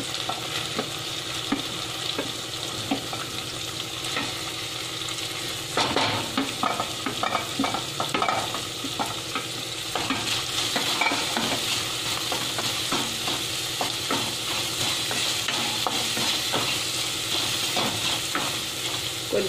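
Chopped onion tipped into a hot nonstick kadai and stirred with a wooden spatula, which scrapes against the pan in repeated strokes over a steady sizzle from the frying cumin, green chillies and curry leaves.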